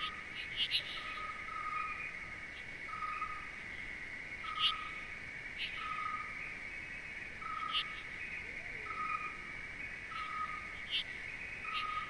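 Nature ambience: a steady high-pitched insect chorus, with a short call note repeated every second or so and occasional sharp, high chirps.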